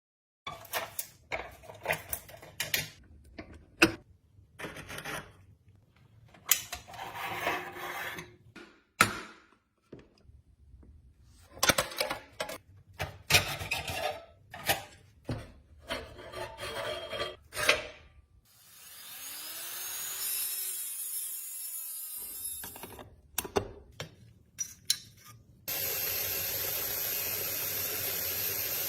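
Hand tools scraping, rubbing and knocking on the parts of a toy tow truck during restoration, in short separate bursts. A longer rising whirr comes about two-thirds of the way in, and a steady hiss runs through the last few seconds.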